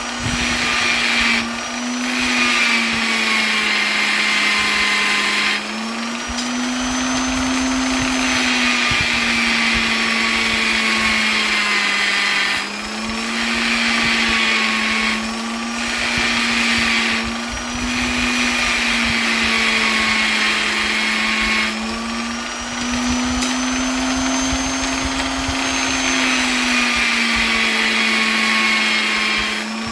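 Electric polisher running steadily, a motor whine with a strong hum whose pitch drifts slightly up and down, dipping briefly every few seconds.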